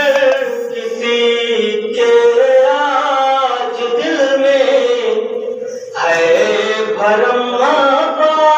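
A man chanting a devotional kalam in a melodic, sung style, holding long notes; he breaks off briefly about six seconds in and starts a new phrase.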